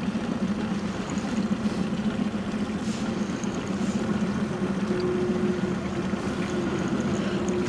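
A small outboard motor running steadily at trolling speed, a low even hum that holds through the whole stretch while a fish is being played.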